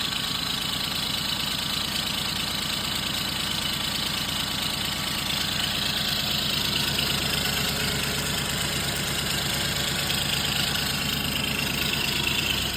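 Car engine idling steadily with an even, fast pulse; the suspected rod knock sounds gone to the listener.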